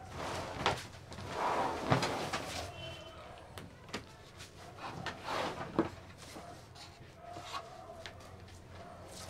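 A stiff card pattern and a leather hide being handled and slid across a worktable: rustling swells with a few sharp knocks, then quieter handling near the end.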